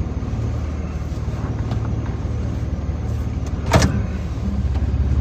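Vehicle engine idling steadily, with one brief sharp click about four seconds in.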